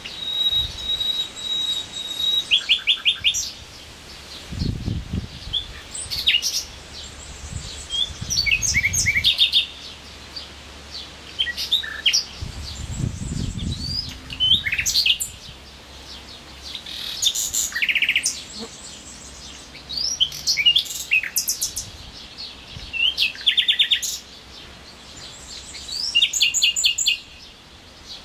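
Common nightingale singing in full song: a run of separate phrases a second or two apart, each a mix of sharp whistles, quick sweeps and fast trills of repeated notes. The first phrase opens with a long steady whistle that breaks into a quick trill.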